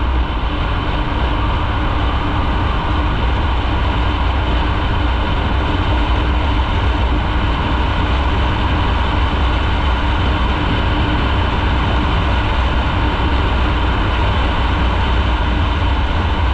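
Motorcycle running at a steady cruise, its engine note even with a constant low rumble, no revving or gear changes.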